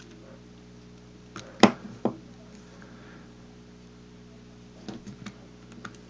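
Sharp little clicks and taps of a knife blade working on coaxial cable as the foam insulator is scored: a loud click about one and a half seconds in with two smaller ones around it, then a few lighter clicks near the end, over a steady low hum.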